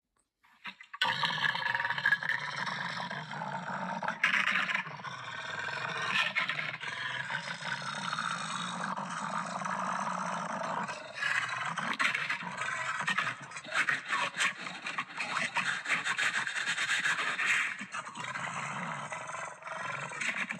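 Beast-like growling and roaring that starts about a second in and runs on unbroken, with rough scraping crunches through the second half.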